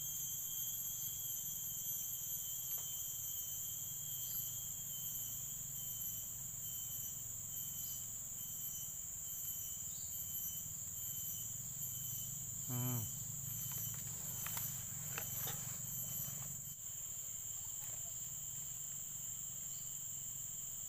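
Insects chirring steadily in several high, continuous tones over a low background hum; the highest tone stops about three-quarters of the way through.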